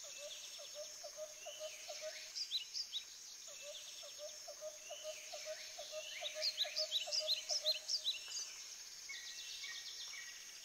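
Bird and insect soundscape: birds chirping over a steady high insect drone. One bird repeats a low note about four times a second in two long runs, and near the end another repeats a short level whistle about twice a second.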